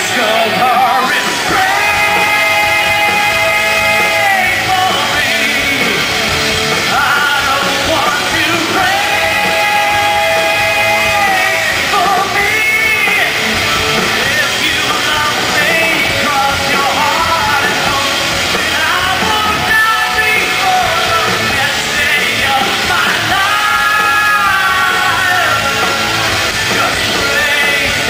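Rock band playing live through a festival PA, with long held sung notes over guitars and drums, recorded from within the crowd.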